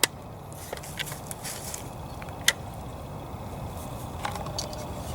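Scattered sharp clicks and light knocks from the Maverick 12-gauge bullpup shotgun being handled, the loudest about two and a half seconds in, over a steady low background noise.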